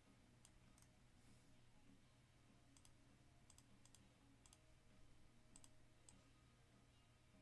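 Near silence with faint computer mouse clicks, scattered singly and in quick pairs, over a low steady room hum.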